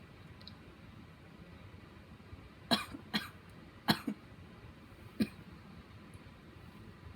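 Four short, stifled sneezes from a person holding them back to stay quiet, each a sharp hissing burst. Three come close together a little under three seconds in, and a fourth follows about a second later.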